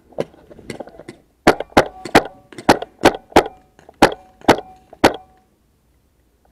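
Magazine-fed paintball marker firing a string of about nine shots, each a sharp crack roughly a third of a second apart, loud and close from a camera mounted on the gun itself. A few fainter knocks come just before the shooting starts.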